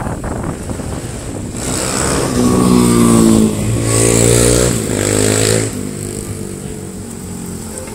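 A motorbike engine passing close. It is loud for about four seconds, rising in pitch twice as it accelerates through the gears, then falls in pitch and fades to a lower steady running sound.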